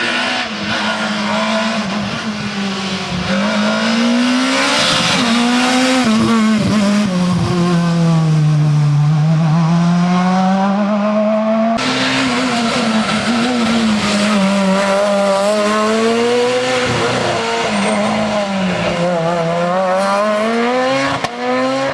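Rally car engines at full effort on a special stage, the pitch climbing and dropping again and again as the car accelerates, shifts and brakes. About halfway through, the sound jumps abruptly to another car doing the same.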